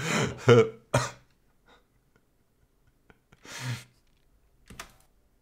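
A person coughing: three quick coughs in the first second, then one more about three and a half seconds in.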